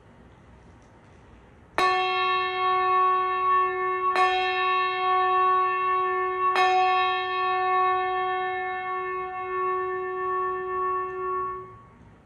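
Brass handbell rung three times, about two and a half seconds apart, each stroke ringing on long with several steady tones. The ringing stops suddenly near the end.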